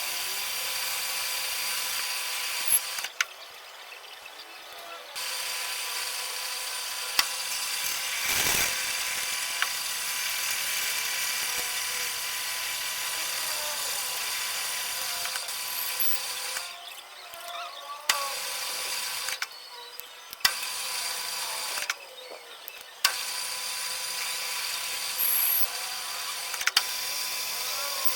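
Electric motor of a workshop machine running with a steady whine. It cuts out briefly four times, with sharp clicks as it stops and starts.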